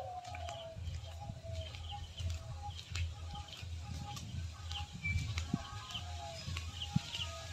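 Birds calling: many short repeated notes with higher chirps scattered among them, over a steady low rumble.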